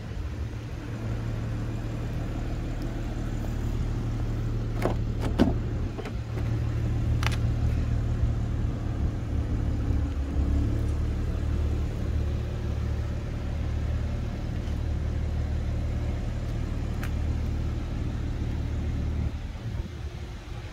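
Steady low rumble of a car engine idling. About five seconds in there are a few sharp clicks and a clunk as a car door is opened.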